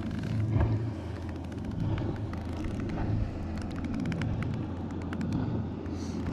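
Open-water ambience around a kayak: a steady low rumble with many light clicks and taps scattered through it, thickest in the middle.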